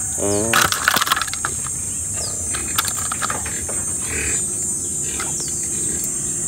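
Steady high-pitched drone of insects, likely crickets, with a few clicks and knocks from handling birds at a wire cage in the first second.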